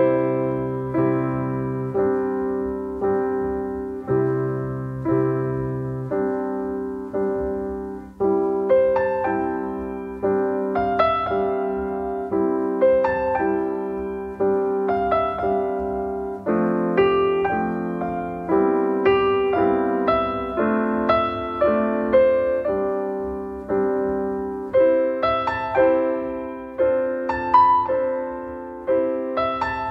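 Background solo piano music: a slow, steady run of struck notes, about one a second.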